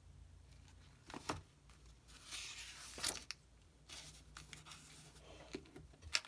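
Paper pages of an old booklet being handled and turned: soft rustling with three sharp clicks spread through.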